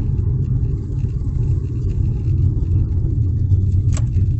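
Steady low rumble of a car on the move, heard from inside the cabin: road and engine noise, with a short click near the end.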